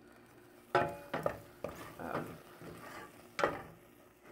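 A wooden spoon stirring and mashing thick oatmeal in a stainless steel saucepan: soft scraping with a few sharp knocks against the pot, the loudest just under a second in and again about three and a half seconds in.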